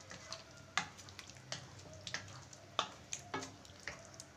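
Wooden spatula stirring drumstick pieces through a watery tomato-onion gravy in a pot. It gives about six soft knocks against the pot and the pieces, spaced about half a second to a second apart, over a faint simmering hiss.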